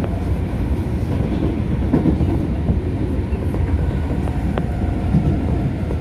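Osaka Metro subway train running at speed, heard from inside the car: a steady low rumble of wheels on rail, with one sharp click about four and a half seconds in.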